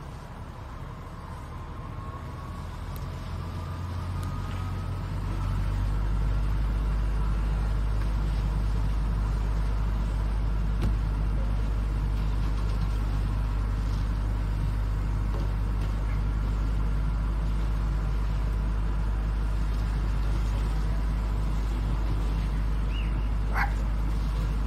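A fire engine's engine revs up over the first few seconds, with a faint rising whine, then settles into a loud, steady, deep drone as it runs its pump to put water on the burning truck. A short chirp sounds near the end.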